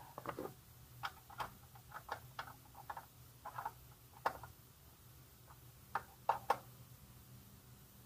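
Faint, irregular sharp metallic clicks and ticks, about a dozen of them, some in quick pairs, from a hand tool working the rear-axle chain adjuster on a motorcycle swingarm while the chain is being tensioned.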